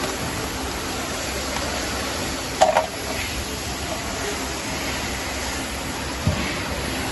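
Steady background hum with a single sharp, ringing clink about two and a half seconds in and a duller knock near the end, as of parts or tools being handled while a motor is taken apart.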